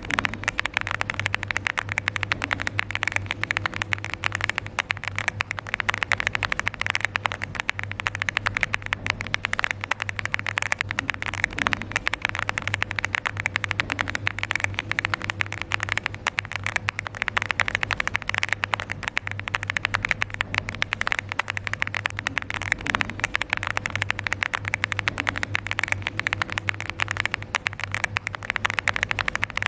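Fast, continuous typing on a LEOBOG Hi8 mechanical keyboard fitted with Barbie switches: a dense patter of key clacks, with a steady low hum underneath.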